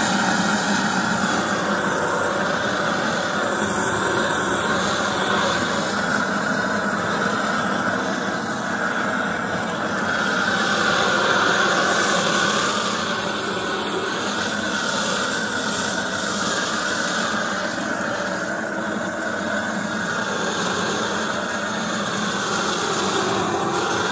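Handheld gas cooking torch burning at full flame with a steady rushing hiss, its flame played along a wooden axe handle to fire-treat it.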